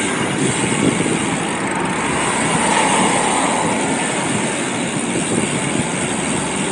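Steady rushing noise of a bicycle ridden at speed: wind over the microphone together with road noise.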